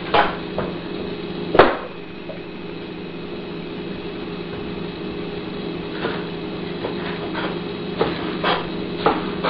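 Knife chopping a bell pepper on a cutting board: a few sharp knocks near the start, the loudest about a second and a half in, then a run of knocks about every half second in the last few seconds. A steady low hum runs underneath.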